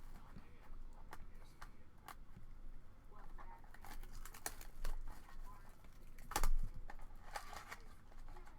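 Crinkling and rustling of a sports card box's packaging being handled and opened, with scattered small clicks and taps and one louder rustling burst about six and a half seconds in.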